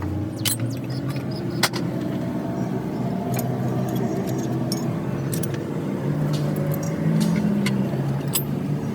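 Metal tools clicking and clinking against engine parts in irregular short knocks during engine disassembly, over the steady low hum of a motor vehicle engine running.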